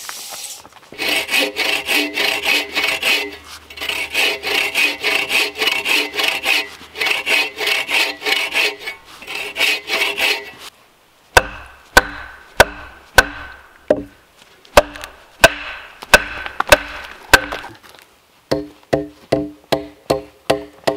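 Folding bow saw cutting into a log with even back-and-forth strokes, about two a second, the blade ringing on each stroke. After about ten seconds the sawing stops and an axe starts chopping into the log, sharp single blows a little over a second apart at first, then quicker, about three a second, near the end.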